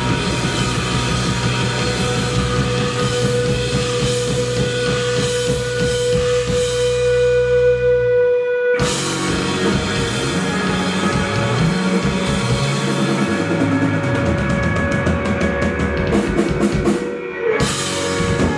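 Live rock band with a drum kit and electric guitars playing an instrumental passage. A held note breaks off at about nine seconds into a busier section, which closes on a final cymbal crash near the end.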